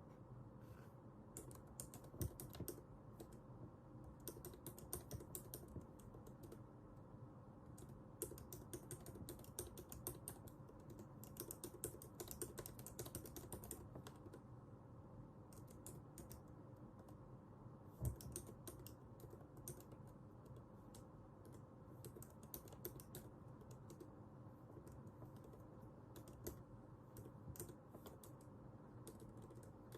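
Faint computer keyboard typing in bursts of rapid keystrokes separated by pauses, with a heavier knock about 2 seconds in and another about 18 seconds in, over a low steady hum.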